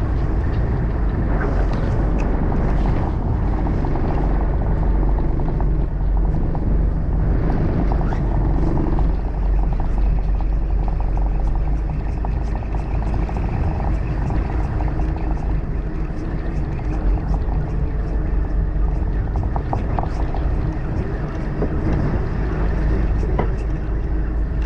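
A party fishing boat's engine running steadily, a constant low drone with a rushing noise over it and a few faint clicks.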